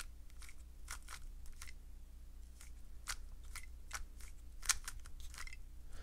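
A 3x3 speed cube turned by hand through a quick run of face turns, its plastic layers giving a string of about a dozen faint, sharp clicks at an uneven pace.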